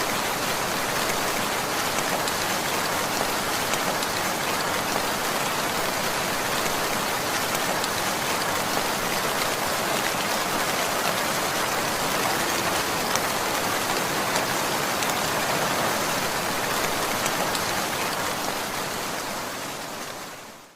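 Heavy rain falling steadily, a dense even hiss of drops on surfaces, fading out near the end.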